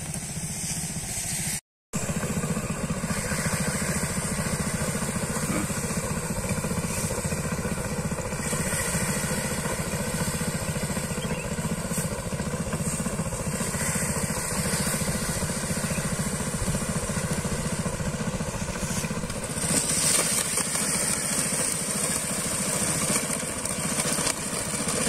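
Rice threshing machine running steadily, its small engine droning throughout. A higher hiss grows louder near the end as rice stalks are fed into it.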